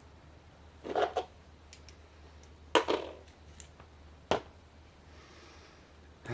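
Small metal clicks and clatters from an American 5200 padlock and its parts being handled: a pair of clicks about a second in, a louder double clack near three seconds, and one more sharp click a little after four seconds.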